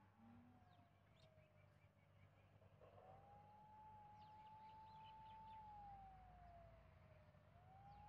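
Faint wailing siren in the distance, its single tone sliding slowly down, jumping back up about three seconds in, then sliding down and rising again near the end. Faint bird chirps sound over it.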